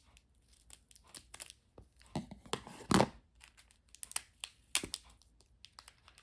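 Small packaging being crinkled and torn open by hand, with many light crackles and one louder rip about halfway through.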